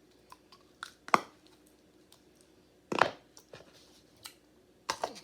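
Slime being handled and squeezed: a few separate short wet clicks and squelches with faint ticks between them.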